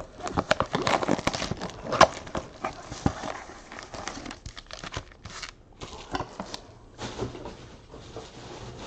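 A cardboard trading-card box being handled and opened and its foil-wrapped packs pulled out and set down, with crinkling, rustling and light taps and clicks. The handling is busiest in the first few seconds and softer after.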